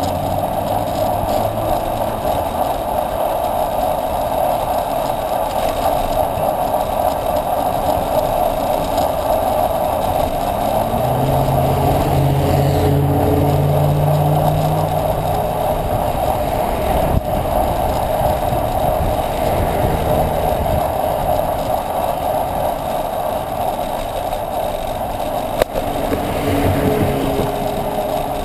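Steady rushing wind and road noise on a bicycle-mounted camera, with motor vehicles passing close by in the next lane. A pickup truck's engine swells and fades past about halfway through, and another car goes by near the end.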